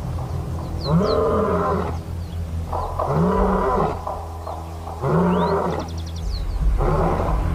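African lion roaring: four long roars about two seconds apart, each rising and then falling in pitch.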